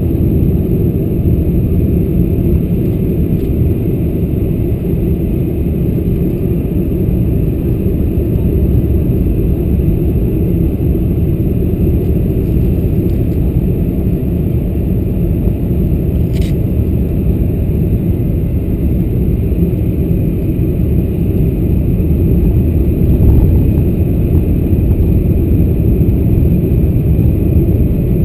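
Steady, deep cabin noise inside a Boeing 747-400 on approach, heard at a window seat over the wing: airflow and the General Electric CF6-80C2 engines running at reduced thrust during descent. A single brief click about halfway through.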